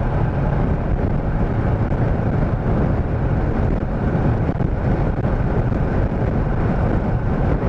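Motorcycle on the move: steady engine and road noise with wind buffeting the microphone.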